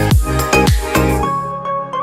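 Electronic background music: a beat of falling bass hits that drops out a little over a second in, leaving held synth tones.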